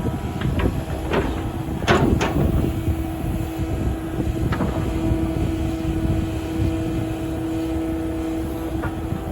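Kubota KX080-4 excavator's diesel engine running, with a steady whine from about two seconds in until near the end. Several sharp metallic clanks come in the first two and a half seconds, and one more near the middle.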